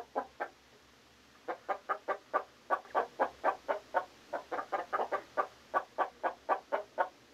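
Chicken clucking: three quick clucks, a pause of about a second, then a steady run of about four or five clucks a second.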